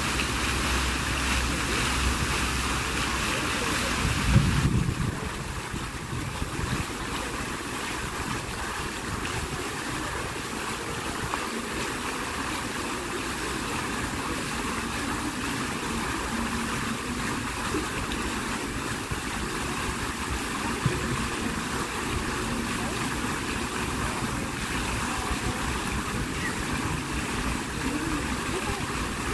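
Jets of a large outdoor fountain splashing steadily into the basin as a constant rushing hiss, with a brief low thump about four seconds in, after which the hiss is a little softer.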